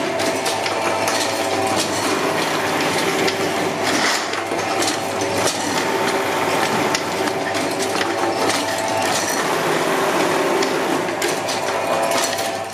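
Paper firework-tube machine running: a steady mechanical hum under a continuous, dense clatter of rapid knocks and clicks.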